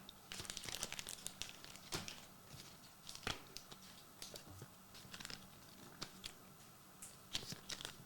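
Trading card pack wrappers being torn open and crinkled, a run of light, irregular crackles and rips.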